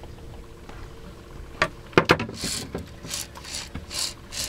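Fishing reel's drag buzzing in a run of short spurts, about two or three a second, as a hooked shark takes line. Two sharp knocks come just before, about a second and a half and two seconds in.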